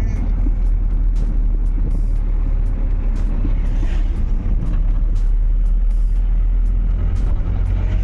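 A moving vehicle heard from inside its cabin: a steady low rumble of engine and road noise, with no other sound standing out.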